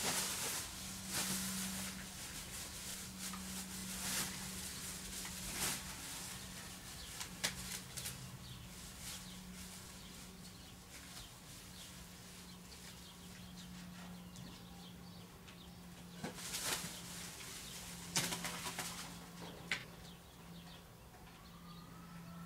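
Plastic masking film rustling and crinkling in irregular bursts as it is handled and taped down, over a steady low hum.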